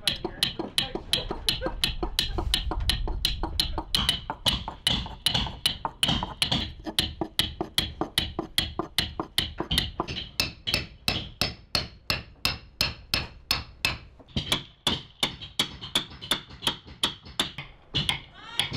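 Wooden caulking mallets striking caulking irons in a steady, even rhythm of about three blows a second, driving cotton into the plank seams of a wooden boat's hull.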